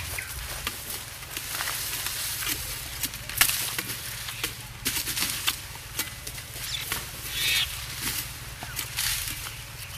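Cane knives chopping standing sugarcane by hand: irregular sharp cracks as the blades strike the stalks, among rustling of dry cane leaves.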